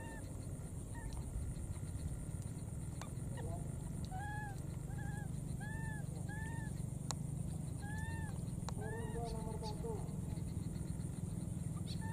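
Baby macaque crying: short, high, arched squeaks, singly and in quick pairs with pauses between, over a steady low rumble of background noise.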